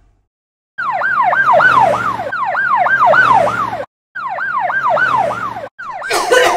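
Police siren in a fast yelp, its pitch sweeping up and down two to three times a second, starting about a second in and cutting off briefly twice. A louder noisy burst joins it near the end.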